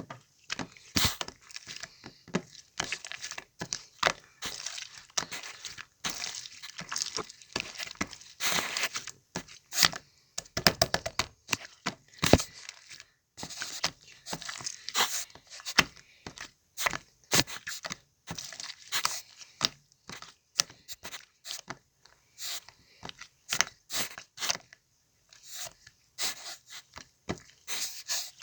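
Slime being squished, stretched and poked by hand, making a dense, irregular run of sharp clicks, pops and crackles.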